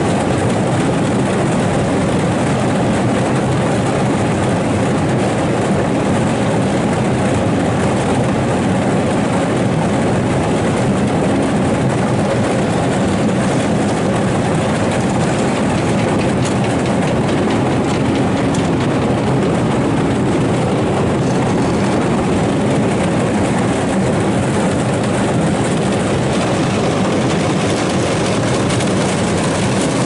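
Sugar beet piler running: its conveyors and machinery make a steady, loud mechanical din, the sound of a piler in operation building the beet pile.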